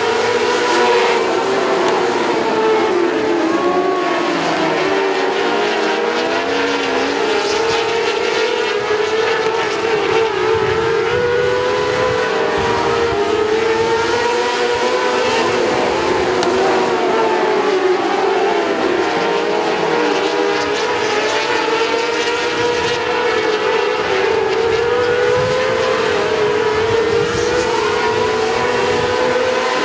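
A pack of 600cc outlaw micro sprint cars racing, their 600cc motorcycle engines at high revs, running together without a break, the pitch rising and falling as the cars lap.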